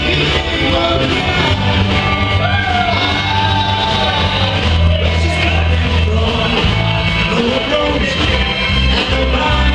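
Rock band playing live, with a voice singing over the band.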